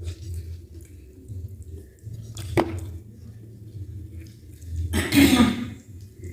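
Plates and food being handled while eating: a single sharp clink of a dish about two and a half seconds in, then a louder, noisy burst near the end.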